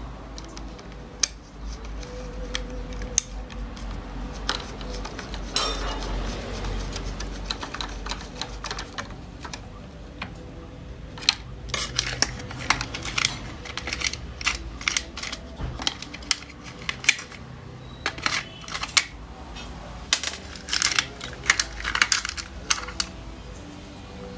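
Irregular clicks and light taps of small hard objects being handled, scattered at first and then in quick clusters through the second half, over a steady low hum.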